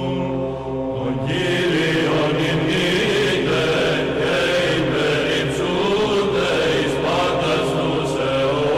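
Byzantine chant sung in Greek: a melodic vocal line over a steady held drone (the ison). One held note ends and a new sung phrase begins about a second in.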